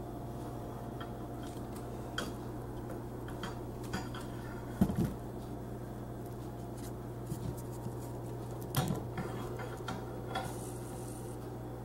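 Hands handling parts inside a PC case: scattered light clicks and knocks of plastic and metal, the loudest about five seconds in and again near nine seconds, over a steady low hum.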